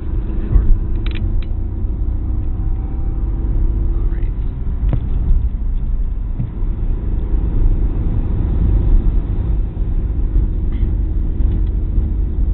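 Opel Corsa's engine and tyre-and-road rumble heard from inside the cabin while driving fast, a steady loud drone with a couple of brief knocks about a second in and around five seconds in.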